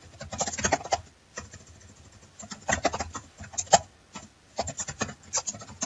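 Typing on a computer keyboard: runs of quick key clicks with short pauses between words.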